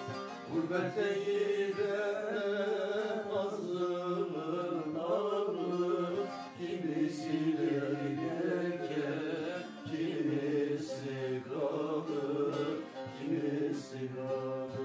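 A man singing a Turkish folk song (türkü) to two bağlamas (long-necked saz), plucked and strummed under the voice. The voice comes in about a second in and carries on in phrases over the steady strings.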